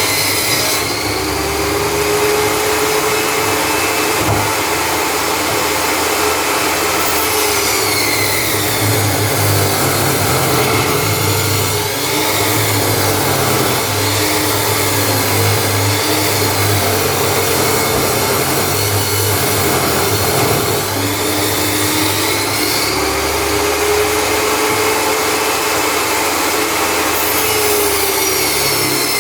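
Table saw running steadily while cutting wood branches, its pitch sagging and recovering several times as the blade takes the wood.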